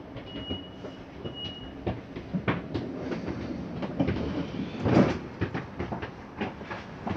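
Train in motion: a steady rumble of the running gear with irregular clicks and knocks, two short high tones in the first two seconds, and a louder swell about five seconds in.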